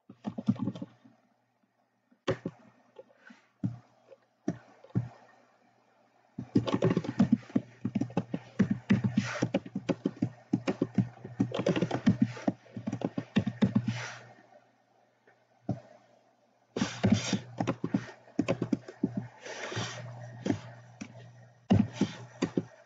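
Typing on a computer keyboard: a few scattered keystrokes, then fast runs of keys with short pauses between.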